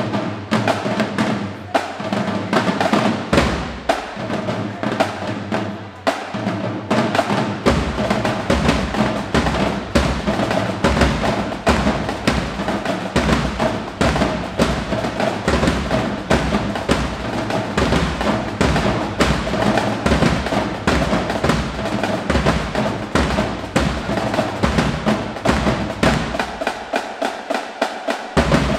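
Marching band drumline playing a cadence: rapid snare and tenor drum strokes over bass drums. The bass drums come in only now and then at first, then play steadily from about eight seconds in.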